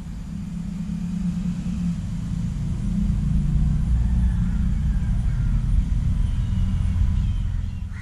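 Low rumble of traffic crossing the concrete road bridge overhead, growing louder a few seconds in and cutting off suddenly near the end.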